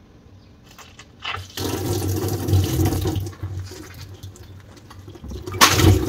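Water gushing out of a water-filled nano tape balloon and splashing into a stainless steel sink. There are two loud surges, one starting about a second and a half in and one near the end.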